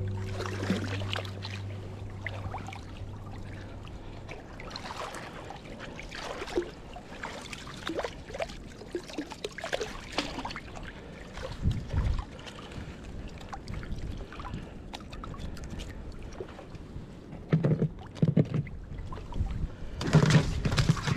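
Water splashing and sloshing as a long-handled dip net is swept through shallow water to scoop up a Dungeness crab, with scattered short splashes. Near the end come a few louder knocks as the crab is handled into a floating crab tub.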